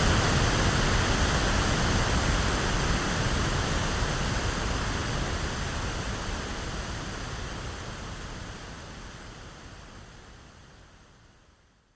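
Electronically generated pink noise, a steady even hiss with plenty of low rumble, fading out gradually to silence by the end.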